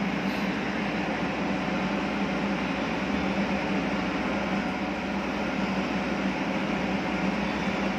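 Silent-type diesel generator in a soundproof canopy running steadily through a five-minute test run: an even mechanical hum with a strong low tone.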